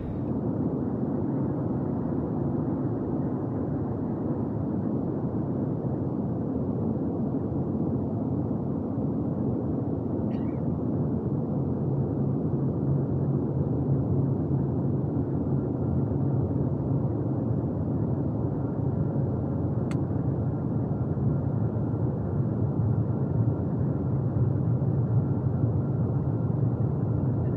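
Steady cabin noise of an Airbus A321neo airliner in flight: an even rumble and rush of engines and airflow, with a single faint click about two-thirds of the way through.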